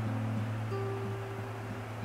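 Background music: plucked-string notes over a sustained low bass note.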